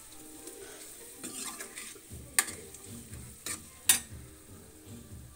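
Metal spoon stirring onion-tomato masala as it fries and sizzles in oil in a steel kadhai, while the spices are roasted until the oil separates. The spoon clinks sharply against the pan three times about halfway through.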